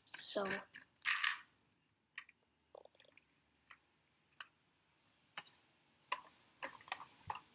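Scattered light clicks and taps of plastic Lego pieces as the Lego truck model is handled and pushed into place, a few clicks a second at irregular spacing.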